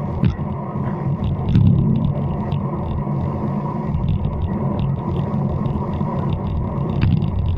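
Wind buffeting the microphone of a camera mounted on a road bike moving at speed in a group ride, a heavy unsteady rumble mixed with road noise, with a few light clicks and rattles from the bike.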